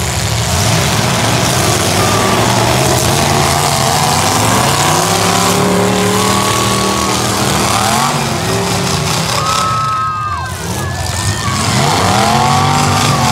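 Demolition derby cars' engines running loud, revving up and down again and again so the pitch keeps rising and falling.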